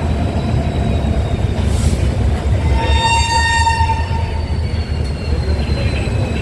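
Indian Railways train horn blown once for about a second and a half, a little under halfway in, over the steady rumble of a train running on the track.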